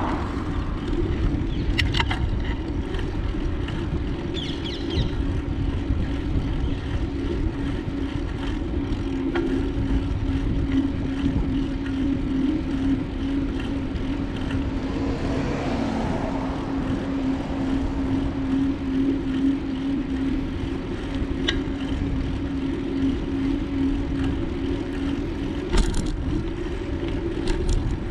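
Wind rushing over the microphone of a bicycle in motion, with a steady hum underneath and a few sharp clicks, the loudest near the end.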